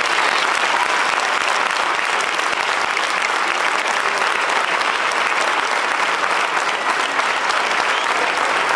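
Audience applauding, many people clapping together at an even level.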